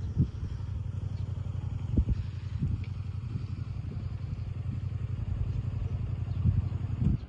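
Motorcycle engine idling, a steady low throb with a few louder low thumps, dropping away suddenly near the end.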